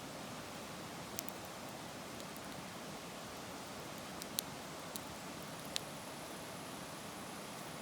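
Campfire of firewood crackling: a steady hiss with scattered sharp pops and snaps, two louder pops past the middle.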